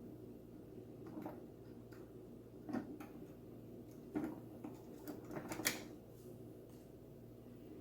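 Light clicks and taps of hands handling a budget turntable's plastic parts during setup, scattered, with a cluster of sharper knocks from about the third to the sixth second. A faint steady low hum runs underneath.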